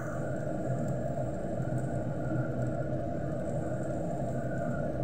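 Steady low rumbling noise from the stovetop as carrot strips and raisins cook in a nonstick pan, with no stirring or knocks.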